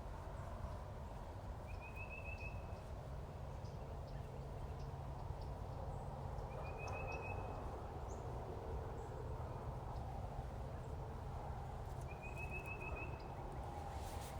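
A songbird singing a short, fast trill three times, about five seconds apart, over a steady low background rumble.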